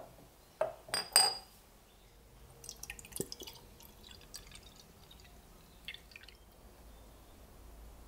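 A rusty metal trench lighter is set down into a glass jar, clinking sharply against the glass three times. Then 9% vinegar is poured in, a thin stream trickling and splashing in the jar.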